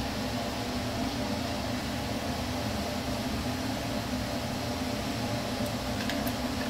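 Steady hum and hiss of a fan running, with a few light clicks about six seconds in.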